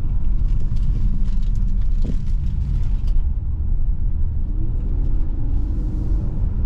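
A 2024 Nissan Pathfinder SUV cruising, heard from inside the cabin: a steady low rumble of road and engine noise.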